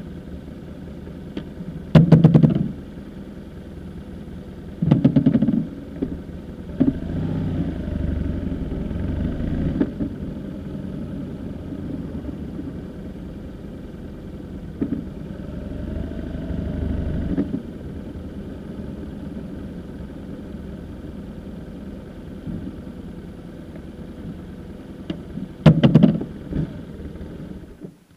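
Large motorcycle's engine running at low speed, picking up twice under throttle, with a few short loud bursts; the engine stops at the very end as the bike is parked.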